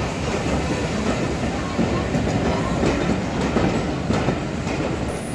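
Coaches of a steam-hauled passenger train rolling past at close range: a steady rumble with the wheels clicking over rail joints, easing slightly near the end as the train moves away.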